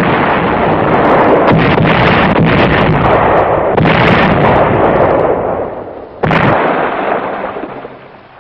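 Heavy artillery firing and shells bursting: a dense, continuous barrage with several sharp reports, then one last blast about six seconds in that dies away near the end.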